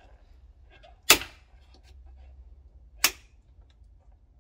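Two short, sharp bursts of sound about two seconds apart, each with a brief tail, over a quiet background.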